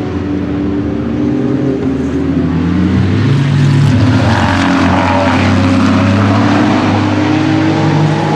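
Aston Martin Vantage GT3's twin-turbo V8 racing engine running hard at speed on track, getting louder about three seconds in as the car comes close. A hiss of tyres throwing spray off the wet track runs over the engine for a few seconds.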